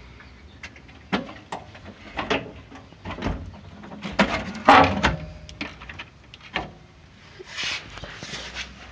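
Irregular clicks, knocks and scraping from hands-on work under a car, loudest in a cluster of clunks about halfway through.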